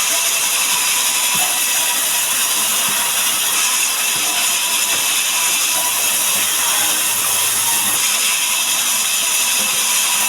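Sawmill saw running steadily through a mahogany log, giving an even, loud, high-pitched hiss with a mechanical rattle.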